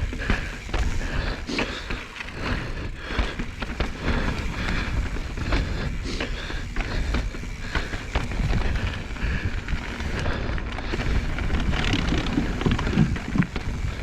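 Mountain bike riding a dirt trail: a steady rush of tyres rolling over the ground, with frequent knocks and rattles from the bike over bumps and a steady low rumble.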